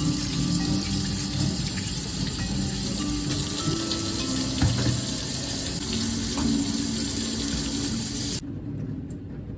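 Kitchen tap running into a sink in a steady hiss, shut off abruptly about eight seconds in.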